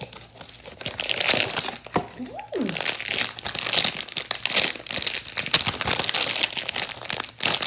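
Blind-box packaging crinkling and rustling as it is handled and opened, starting about a second in and carrying on as a dense crackle.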